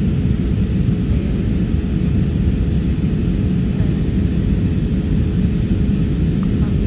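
Airliner's engines running, a loud, steady low drone with a faint steady hum through it.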